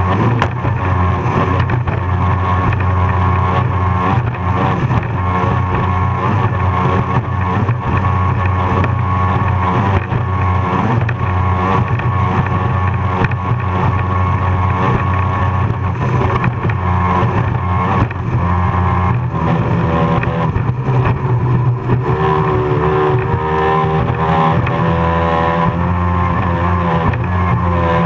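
Racing powerboat's engine running hard at high revs, heard on board over a rush of wind and water noise. In the last several seconds the engine note wavers up and down as the revs change.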